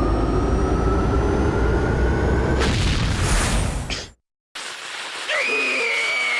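Cartoon sound effect of a loud, rumbling boom with a slowly rising whine in it, cutting off abruptly about four seconds in. A quieter sound with a whistle-like tone follows near the end.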